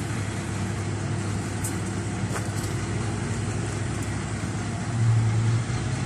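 A motor engine running steadily with a low drone that swells briefly about five seconds in.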